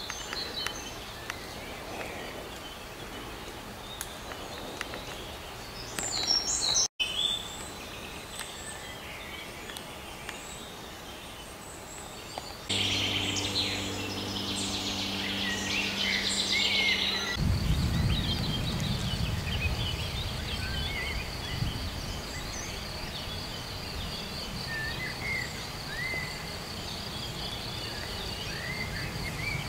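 Wild birds singing and calling, short chirps and trills scattered throughout. About halfway through, a steady low hum joins for a few seconds. After that comes a low rumble of wind on the microphone and a steady, fast-pulsing high chirring like an insect in the grass.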